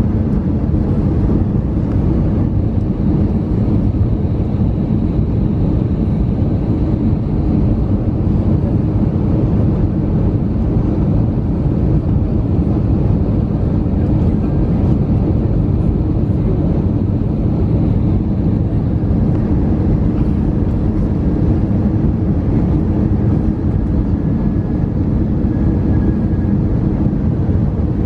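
Airbus A320-214 cabin noise on approach, heard from a window seat beside the wing: a steady, deep rush of its CFM56 engines and airflow that stays even throughout.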